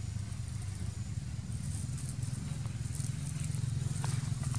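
Steady low rumble of a motor engine running nearby, with a few faint clicks near the end.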